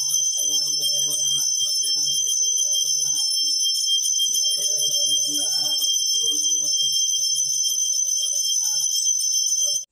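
Temple bell rung without pause during an aarti lamp offering: a bright, steady metallic ringing that cuts off abruptly just before the end. Lower, broken sounds run underneath.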